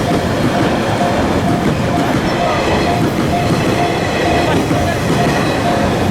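An E351 series electric limited express train passing over a level crossing, its wheels clattering and rumbling steadily, while the crossing's warning bell dings at an even pace.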